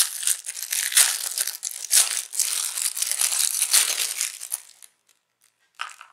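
Clear plastic bag crinkling loudly as earphones are pulled out of it by hand, stopping a little after two-thirds of the way in, with one short rustle near the end.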